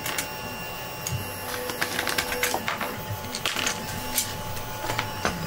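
Scattered light clicks and taps, irregular, as clamps and small plastic parts are handled during a glue-up.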